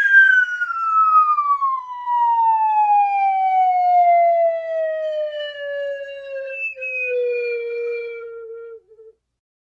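A siren winding down: one long tone gliding steadily down in pitch, falling fast at first and then more slowly, and fading out about nine seconds in.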